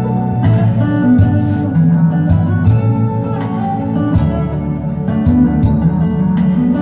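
Instrumental break of a ballad's accompaniment: guitar over a steady beat, with no singing.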